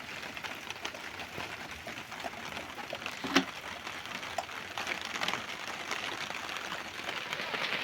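Rain falling steadily, a patter of small drops, with one sharp knock about three and a half seconds in.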